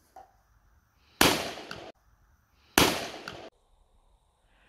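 Two shots from a Wolverine XD 12-gauge folding pump shotgun, about a second and a half apart, each a sharp blast with a short echoing tail.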